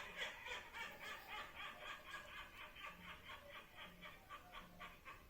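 A played novelty sound effect: a rapid, even run of short pulses, about five a second.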